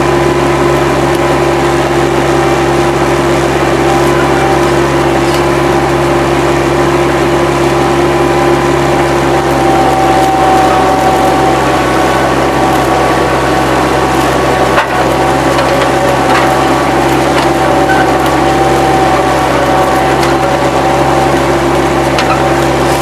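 Bobcat 763 skid-steer loader's diesel engine running steadily while it works dirt, loud and close, with a steady whine over it that grows stronger about ten seconds in.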